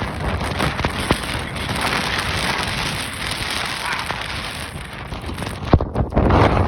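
Strong blizzard wind blowing hard and buffeting the microphone, with a few sharp clicks in the rush.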